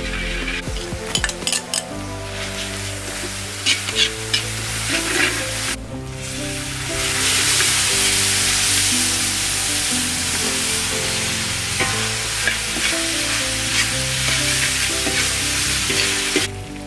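Chopped red chili paste sizzling in hot oil in a steel wok while a metal ladle stirs it, scraping and clicking against the pan in the first few seconds. From about seven seconds the sizzle gets louder and steadier. Soft background music plays underneath.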